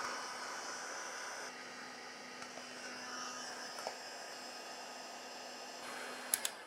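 Heat gun running steadily, a blowing hiss with a low hum, with two sharp clicks near the end as the sound cuts off.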